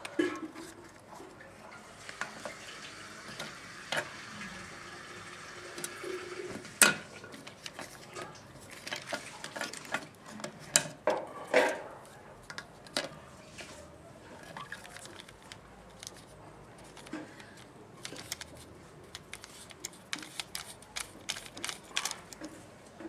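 Hard plastic toy truck parts being handled and fitted together: scattered light clicks, taps and knocks of plastic on plastic and on the tabletop, with one sharper knock about seven seconds in.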